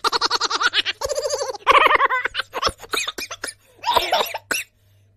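Bursts of laughter: a quick, rhythmic ha-ha-ha run over the first two seconds, then shorter, choppier bursts that stop about four and a half seconds in.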